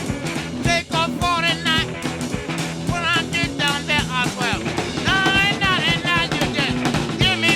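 Rock music with a steady drum beat, bass and a wavering lead guitar or voice.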